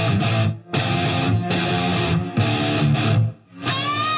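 Background music that stops briefly twice, about half a second in and near the end.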